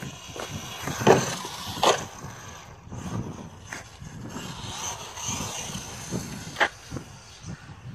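Traxxas Slash 4x4 radio-controlled truck running on asphalt, its electric motor and drivetrain giving a steady high whine over tyre noise. Sharp knocks at about one second, just before two seconds and near the end, the second the loudest, as the truck strikes hard surfaces on its jumps.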